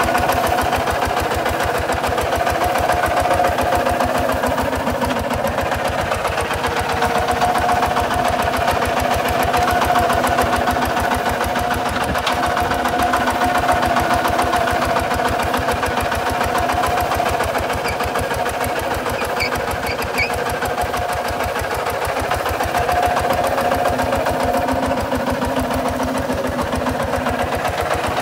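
Kubota RT140 DI single-cylinder diesel engine on a two-wheel walking tractor, running steadily under load as it works dry soil, a rapid even beat of firing strokes.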